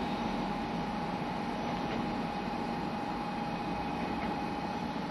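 Steady hum of a Shinkansen N700-series trainset standing at the platform, an even mechanical noise with one constant high tone held throughout.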